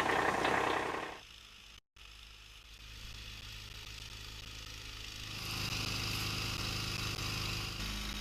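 A track-equipped utility vehicle in snow, loud and rough for about the first second. After a brief cut, its engine runs with a steady low hum that grows louder about five seconds in, with a higher whine joining it.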